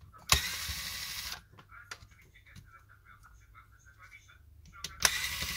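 Cordless electric precision screwdriver whirring in two short runs, each starting abruptly and lasting about a second: one just after the start and one near the end, backing out small screws from a phone's front frame. Light clicks of the bit and handling in between.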